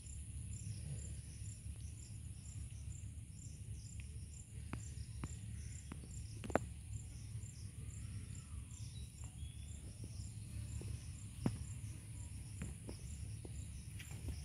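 Insects chirping in a steady rhythm, about two pulses a second, over a constant high-pitched hum, with a low rumble and a few scattered sharp clicks; the clearest clicks come about six and a half and eleven and a half seconds in.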